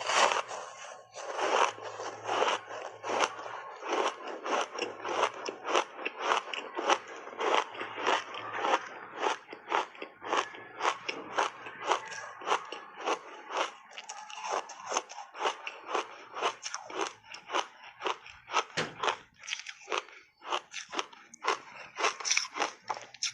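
Ice coated in matcha milk powder being bitten and chewed: a continuous run of sharp crunches, about two to three a second.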